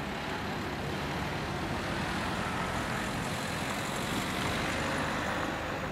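Steady outdoor background noise, an even rushing hiss and rumble with no distinct events, swelling slightly midway.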